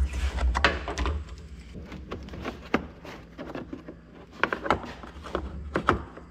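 Tools and fittings being handled in a hard plastic tool case: scattered clicks and clunks of metal against plastic, with a low rumble in about the first second.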